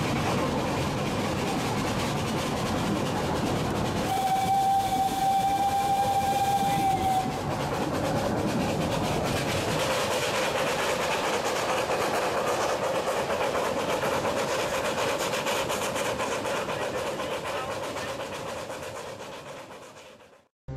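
Small 381 mm-gauge park-railway steam locomotive running along its track, with steady wheel-on-rail running noise. About four seconds in it sounds its steam whistle, one steady note held for about three seconds. The running sound fades away near the end.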